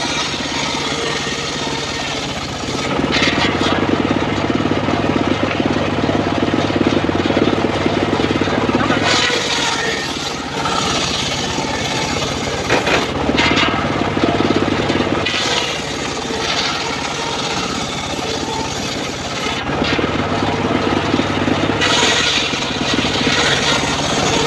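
Homemade engine-driven circular sawmill running and ripping a teak log: a steady engine drone under the blade's sawing noise, which swells in several stretches as the log is pushed through the blade.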